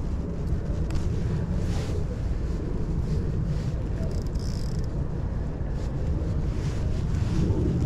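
Wind buffeting the microphone: a steady, low rumbling noise.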